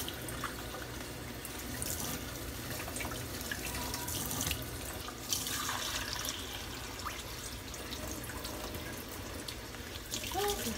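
Kitchen tap running steadily into the sink while diced raw chicken breast is rinsed under it, with a few light knocks.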